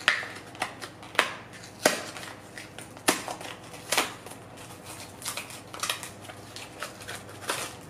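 Small cardboard box being pried and torn open by hand: a handful of sharp snaps and crackles of cardboard and tape, about one a second, then quicker, lighter crackling as the packing inside is pulled open near the end.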